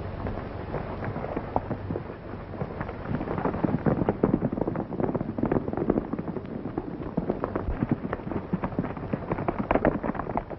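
Hoofbeats of horses galloping on dry ground: a fast, irregular clatter that grows louder and busier about three seconds in.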